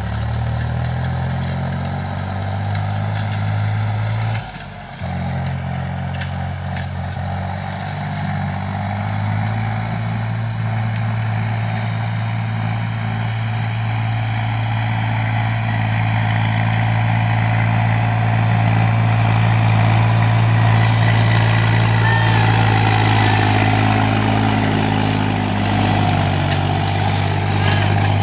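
Diesel farm tractor engine running steadily under load while pulling a tined cultivator through the soil, with a brief dip about four and a half seconds in.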